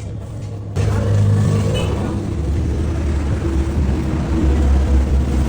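Vehicle engine and exhaust running with a deep, steady rumble. It turns suddenly louder a little under a second in and stays loud.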